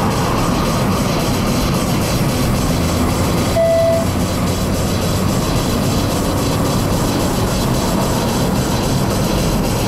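Opel Astra Coupe Bertone Edition's engine and tyre noise heard from inside the cabin, a steady loud rumble while driving. A single short beep sounds about three and a half seconds in.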